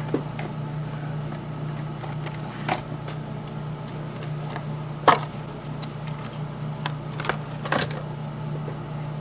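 Scattered small clicks and taps of small metal and plastic parts and tools being handled on a workbench, the sharpest about five seconds in, over a steady low hum.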